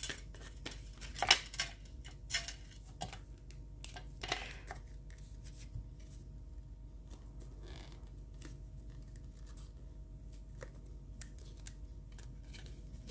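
Stiff black cardstock being handled by hand: crisp paper rustles and sharp taps, most frequent in the first few seconds, then fainter and sparser.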